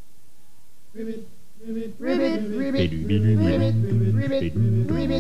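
Music with yodel-like singing. After a quiet first second a few sung notes come in, and about two seconds in the full song starts, with several voices over a steady bass line.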